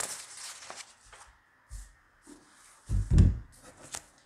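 Paper sheets and book pages rustling as they are leafed through by hand. There is a small knock a little under two seconds in and a louder low thud about three seconds in, as of the book or hands bumping the desk.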